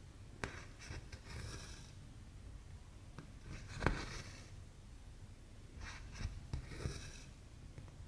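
Needle pushed in and out of 14-count cross-stitch fabric, each pass a sharp click, with embroidery floss drawn through the holes in short soft rasps. There are several stitches; the loudest click comes about four seconds in.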